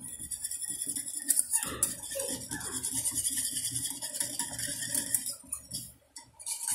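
A small metal whisk stirring milky coffee in an aluminium saucepan, clinking and scraping against the pan in quick irregular strokes. There are two sharper knocks about a second and a half in, and a brief pause near the end.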